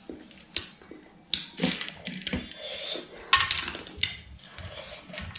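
Close-miked mouth sounds of eating by hand: wet chewing, lip smacks and finger licking in irregular bursts.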